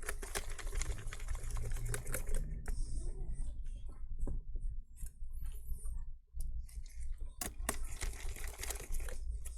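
Irregular small clicks, taps and rattles of a screwdriver and screws working on a laptop's plastic and metal parts, as the hinge screws are driven back in.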